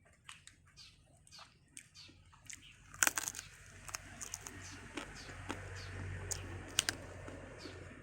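A whole deep-fried zebra dove being bitten and chewed close to the microphone: a sharp crunch about three seconds in, then a run of crackling crunches as the crisp skin and small bones are chewed.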